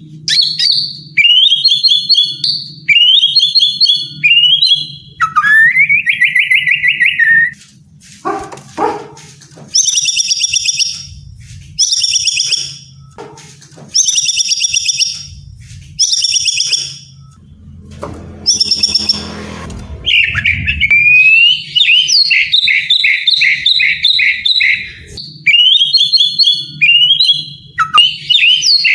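White-rumped shama singing a loud, varied song. It opens with rising whistled phrases, moves into harsh buzzy phrases about every two seconds midway, and ends with a quick series of short rising whistles.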